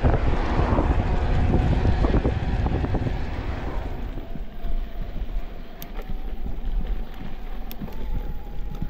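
Wind buffeting the microphone as the mountain bike rides along a paved road. About four seconds in it gives way to quieter tyre noise on a dirt trail, with a few light clicks.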